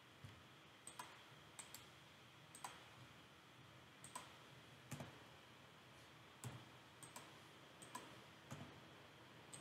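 Faint, irregular single clicks of a computer keyboard and mouse, roughly one or two a second, over a low steady room hum.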